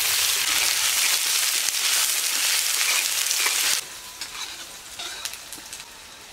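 Freshly added chopped onion sizzling loudly in hot oil in a metal kadai, stirred with a spatula. About four seconds in the sizzle drops suddenly to a much quieter frying hiss with scattered light ticks.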